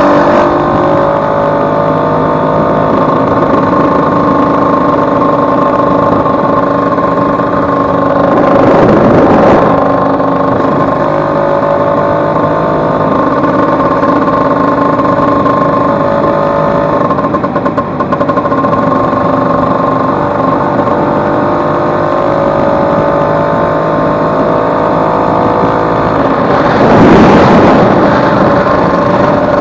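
Vespa 150's single-cylinder two-stroke engine running under way in third gear, its pitch rising slowly as the scooter gains speed, running smoothly with its failed elastic pinion replaced. Two brief rushes of noise cut in, about nine seconds in and near the end.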